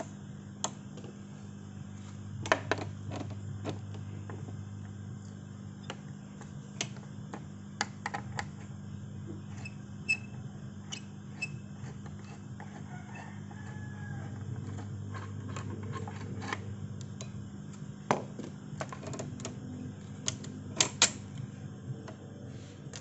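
Irregular metallic clicks and taps of an Allen key working the bolts of a motorcycle exhaust's mounting bracket as it is unbolted, over a steady low hum.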